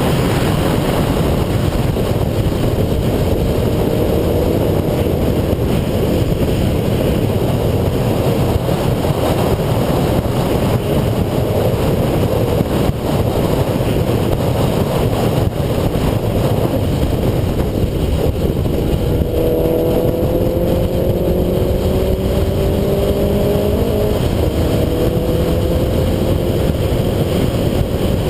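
Subaru Impreza 2.5i's flat-four engine running hard, heard from inside the car under heavy road and wind noise. In the last third its note climbs steadily twice as the car accelerates.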